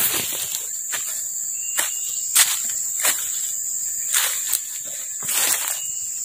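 Footsteps crunching irregularly through dry leaf litter, about one every half second or so, over a steady high-pitched drone of insects.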